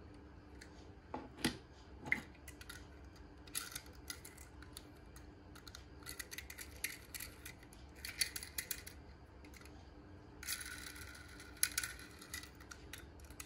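Faint handling noise of small die-cast toy cars turned in the fingers: scattered light clicks and short scrapes.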